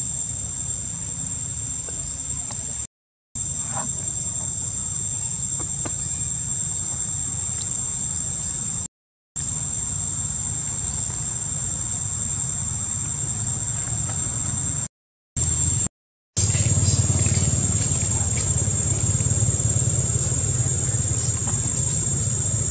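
Steady high-pitched drone of insects over a low, even rumble, with no clear animal calls; the sound cuts to silence briefly four times.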